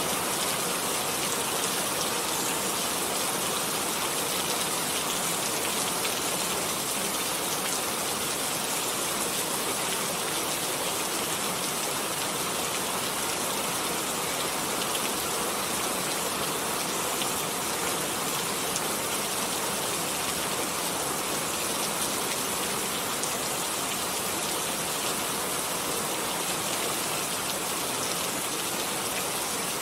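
Steady rain falling, an even hiss of many drops with faint scattered patters of individual drops.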